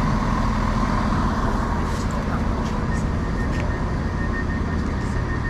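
Diesel multiple-unit train's engines running with a steady low drone, and a faint high steady tone over it.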